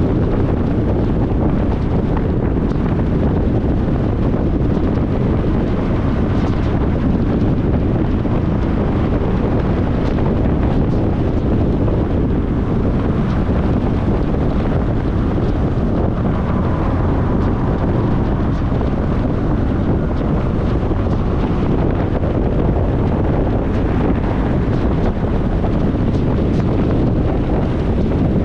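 Steady, low rumbling road and wind noise of a car in motion, as heard riding inside the car, with no changes or distinct events.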